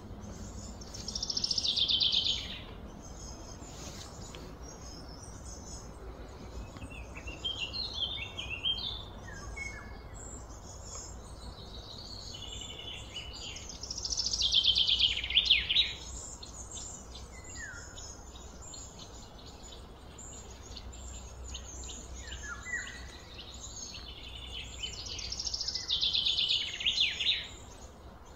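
A songbird singing three loud phrases of rapid, high, falling notes, each about two seconds long and roughly twelve seconds apart, with softer chirps in between, over a steady low background hum.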